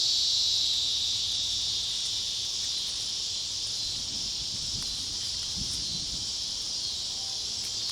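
Steady high-pitched chorus of insects, crickets or katydids, trilling without a break and easing slightly in the first few seconds.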